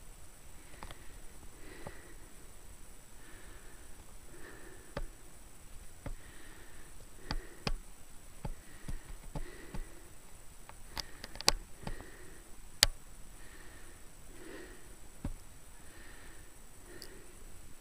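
A person breathing hard and rhythmically close to the microphone, about one breath a second, with scattered clicks and knocks; the loudest are two sharp clicks a little after the middle.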